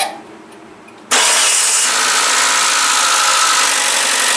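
Mitsubishi Chariot's engine, turned by its freshly repaired starter, comes to life suddenly about a second in and keeps running steadily. A brief noise comes right at the start, before the engine starts.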